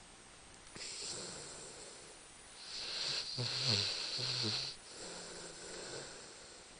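Rhodesian Ridgeback snoring in its sleep: a short hissing breath about a second in, then a longer noisy breath from about three seconds carrying a few short pitched snorts, fading to a faint low snore near the end.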